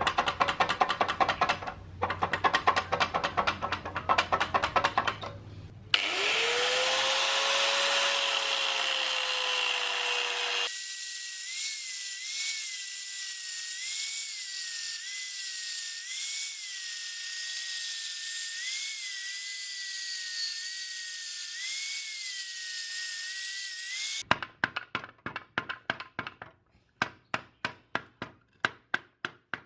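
A run of workshop tool sounds: rapid, repeated sharp strikes for about six seconds, then a power tool spinning up and running steadily with a wavering whine, then quick hammer strikes again for the last few seconds.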